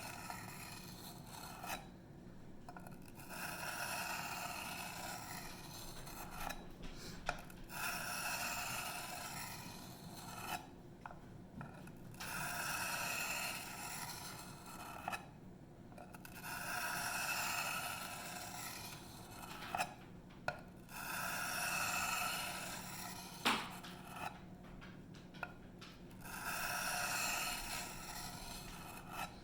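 The 154CM steel blade of an Emerson Mini A100 knife scraping across a wet sharpening stone in long, even passes, about seven in all, with short pauses and a few light clicks between them. This is the stage where a burr is being raised along the chisel edge.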